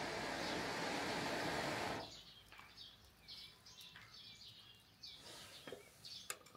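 A steady rushing noise that cuts off abruptly about two seconds in, leaving wild birds chirping repeatedly in short high calls, with a few light clicks near the end.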